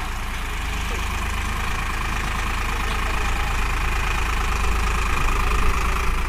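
Eicher 551 tractor's three-cylinder diesel engine running steadily while it works its front loader, lifting a full bucket, getting gradually louder.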